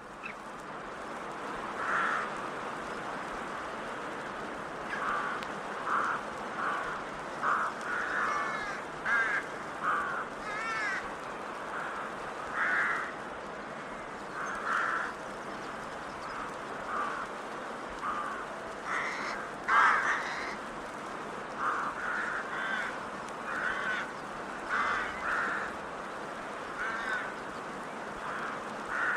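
Crows cawing: many short, harsh calls at irregular intervals over a steady hiss.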